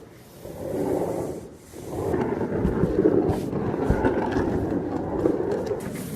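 Rough scraping on wood, coming in long strokes that swell and fade, with a couple of dull knocks partway through.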